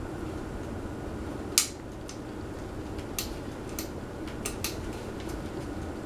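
A loud sharp click, then about five lighter clicks over the next few seconds, over a steady low hum.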